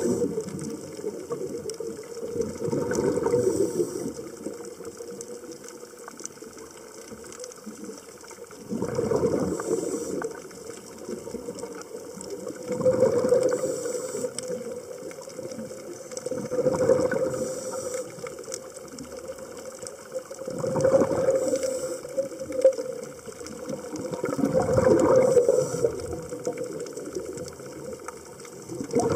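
Scuba breathing heard underwater: bursts of exhaled bubbles rattling out of the regulator about every four seconds, with a longer pause between the first two.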